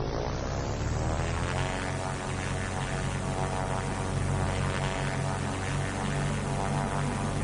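Cartoon helicopter sound effect: engine and rotor whine rising in pitch over the first second or so as it spins up, then running steady.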